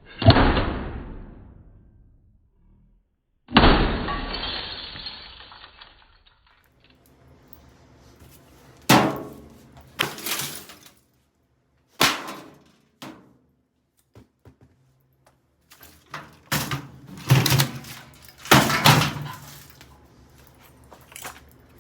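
Heavy hammer blows smashing a microwave oven, with breaking glass and rattling metal. The first two crashes, about three and a half seconds apart, are dull and fade slowly; from about nine seconds in comes a quicker series of sharper hits and clatters.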